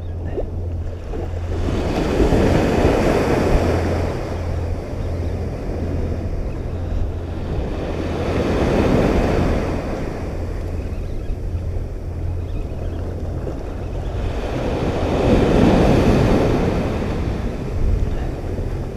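Ocean surf breaking and washing up the beach, three waves swelling and fading about six seconds apart, with wind rumbling on the microphone.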